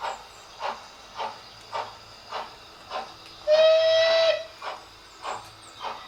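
Sound-fitted Bachmann OO gauge GCR Class 11F model steam locomotive running slowly, its speaker playing an even steam chuff a little under two beats a second. A short steam whistle blast, the loudest sound, comes about halfway through.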